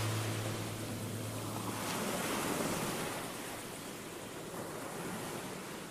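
Sea surf washing in a steady rushing hiss, under a low steady hum that fades out about two seconds in. The whole sound sinks gradually quieter toward the end.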